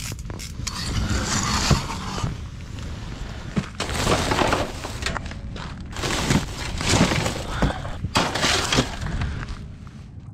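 Gear being handled while packing up inside an ice-fishing tent: several bursts of rustling and scraping from boots, tent fabric and a plastic crate, with a few sharp knocks.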